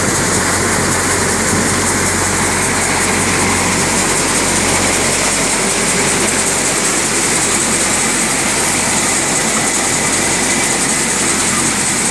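Multicrop basket thresher and the engine driving it running at a steady speed, a constant mechanical hum with a hiss of material passing through, while threshing wet green moong (mung bean) plants.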